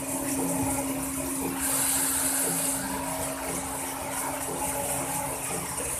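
Steady machinery hum with a constant tone and hiss in a pipelay vessel's welding station, with a louder hiss for about a second starting about two seconds in.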